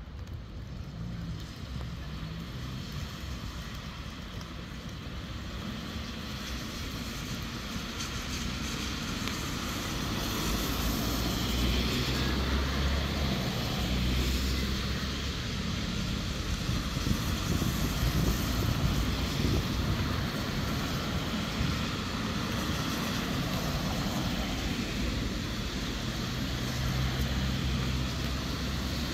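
Road traffic passing on wet asphalt: car tyres hissing on the wet surface over low engine noise, swelling as vehicles come closer.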